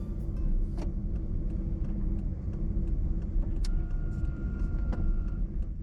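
Car driving along a road: a steady low rumble of engine and tyres. A few light ticks sound, and a faint thin tone holds for over a second in the second half.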